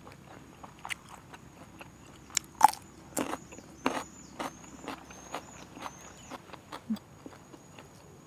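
A person biting and chewing crunchy raw vegetables close to the microphone: a run of sharp crunches, the loudest about two and a half seconds in, then softer chewing clicks that thin out near the end.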